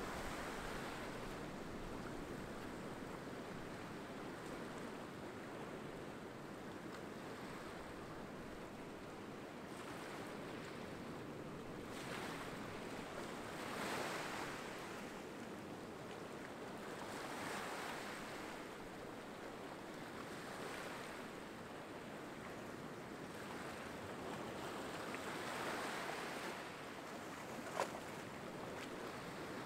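Small waves lapping onto a rocky sand beach: a steady hiss of surf that swells softly every few seconds as each wave washes in. There is a single sharp click near the end.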